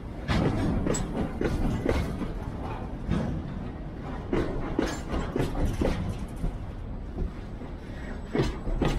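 Footsteps on gravel ballast at a walking pace, about two steps a second, over a steady low rumble of wind on the microphone.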